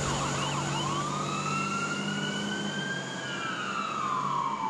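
Fire truck siren running its fast yelp, which gives way about a second in to a slow wail that rises and then falls away, over the truck's engine running.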